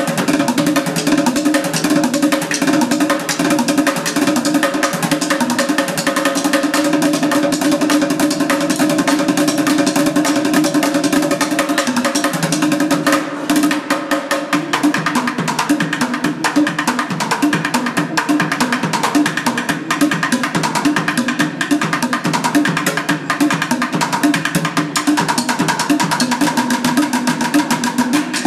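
Bucket drumming: two street drummers hitting upturned plastic buckets with drumsticks in a fast, dense rhythm. There is a brief break in the rhythm about halfway through.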